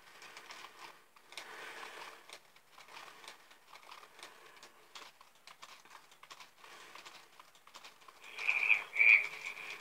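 Faint, irregular clicking and rustling, then Furby toys' high electronic voices chirping twice briefly near the end.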